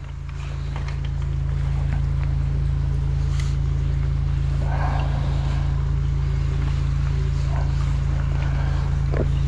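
High-pressure drain jetter's engine running steadily while jetting a blocked stormwater pipe: a low, even drone that builds over the first second or two and then holds.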